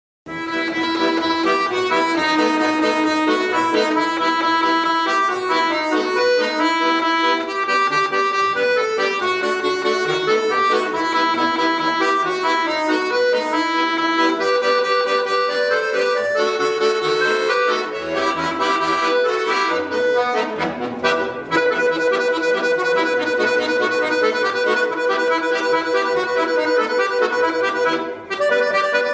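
Bayan, a Russian chromatic button accordion, playing a solo piece: held chords and a moving melody over bass notes. The playing starts sharply just after the start, with a brief pause near the end.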